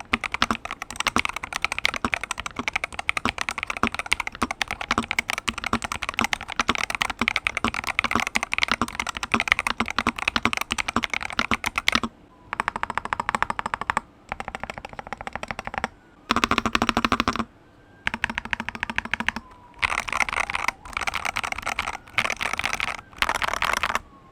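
Typing on a Madlions MAD68 HE Pro keyboard with magnetic switches. It is fast, continuous typing for about the first half, then bursts of rapid keystrokes separated by short pauses.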